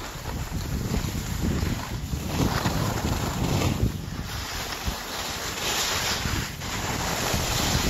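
Wind buffeting a phone's microphone during a downhill ski run, mixed with skis hissing and scraping over packed snow. The noise swells and eases several times as the skier turns.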